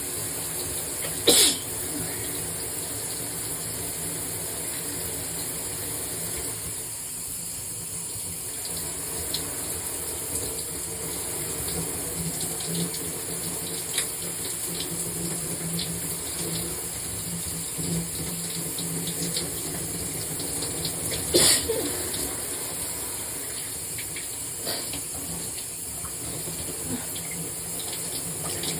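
Shower water running steadily, broken by two sudden loud sneezes, one about a second in and another about twenty seconds later.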